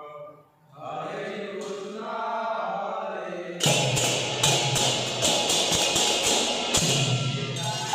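Group of male voices chanting a song in unison; about three and a half seconds in, small brass hand cymbals join, clashing in a rhythm over the singing.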